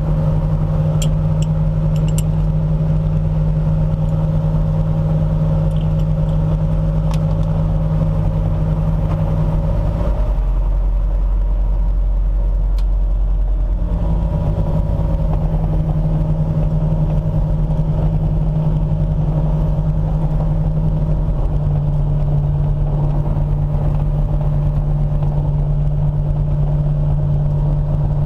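Sky Arrow light aircraft's Rotax 912 flat-four engine and pusher propeller running steadily at low taxi power. The engine note sags lower for a few seconds about ten seconds in, picks back up, and eases down slightly again later. There are a few light clicks in the first several seconds.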